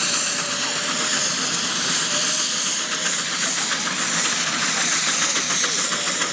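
Steam traction engines on the move: a steady hiss of steam with rapid, closely spaced exhaust beats.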